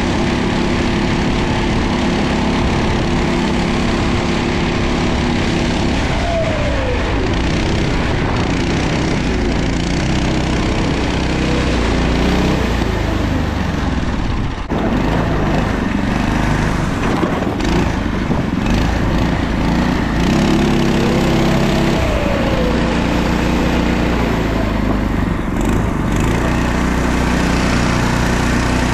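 Harbor Freight Predator 6.5 hp, 212cc single-cylinder four-stroke engine driving a homemade track sled. It runs steadily at first; from about six seconds in its speed falls and rises several times, then it holds steady again for the last several seconds.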